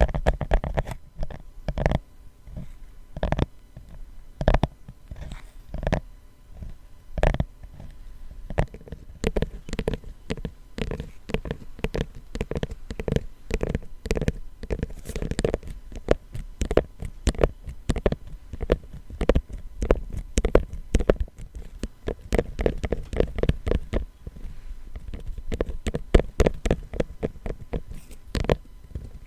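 Fingers tapping on a high-end gift box. The first several seconds have single taps about a second apart, then quicker runs of tapping fill the middle and later part.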